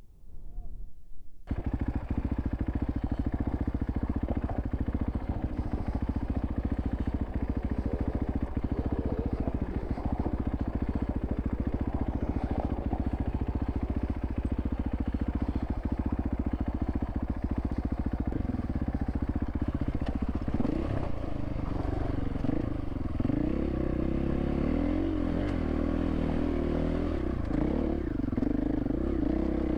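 Dirt bike engine running on rough trail, starting abruptly about a second and a half in with a steady low drone and frequent knocks. In the last third it revs up and down repeatedly.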